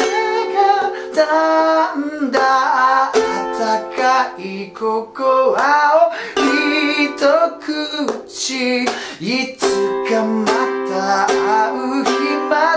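Small thin-bodied ukulele strummed in chords, with a voice singing the melody over it.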